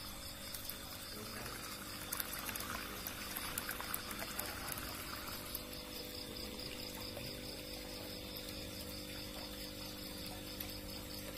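Water bubbling and trickling in an aerated tank, louder from about two to five and a half seconds in, over a steady hum, with crickets chirping in a fast pulsing high trill.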